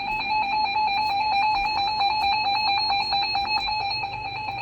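Emergency Alert System attention signal: a loud, steady, harsh electronic alert tone pitched around 850 Hz, held without a break, the signal that precedes a spoken broadcast warning.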